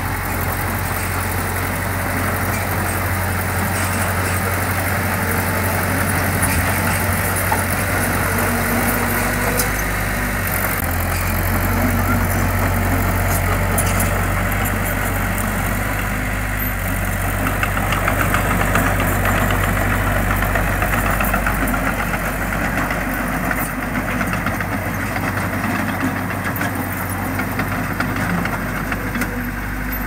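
Heavy-equipment diesel engine running steadily with a low drone, its pitch shifting slightly about a third of the way in and again around the middle.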